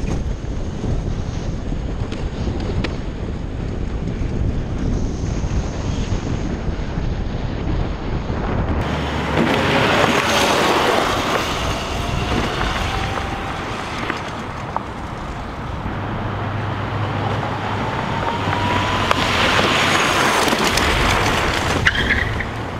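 Wind rushing over the onboard camera's microphone on a homemade electric go-kart, with a faint steady high whine. After a cut about nine seconds in, the kart is heard from beside the lot: its D&D separately excited DC motor whines in slow rising glides, siren-like, over tyre and wind noise, twice as it pulls away.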